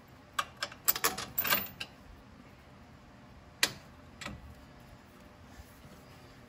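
Sharp metallic clicks and clinks of the steel front track bar bolt being handled and fitted by hand into the frame bracket hole. A quick flurry comes in the first two seconds, then two single clicks a little later.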